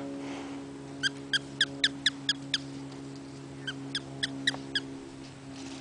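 An animal's short, high chirps in two quick runs, about five a second, over a steady low hum.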